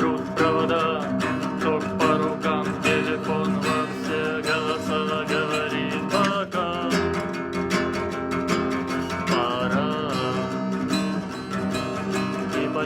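Instrumental song introduction: acoustic guitar strumming steadily, with a melody line gliding above it.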